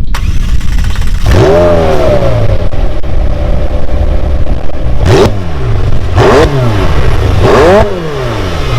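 McLaren twin-turbo V8 idling with a low rumble, then revved: one rev about a second in that falls slowly back, then three sharp throttle blips about five, six and seven and a half seconds in, each dropping back to idle.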